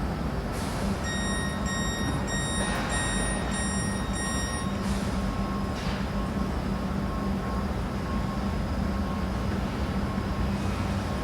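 A train's door warning beeping rapidly for about four seconds, starting about a second in, over the steady hum of an electric train standing at the platform.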